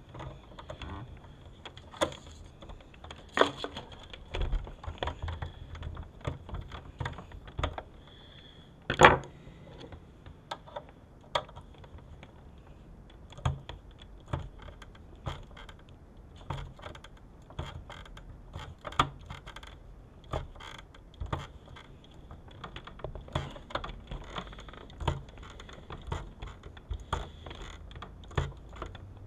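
Irregular small clicks, taps and light scrapes of hands handling the sheet-metal case of a car video entertainment unit and its small screws during reassembly, with one sharper knock about nine seconds in.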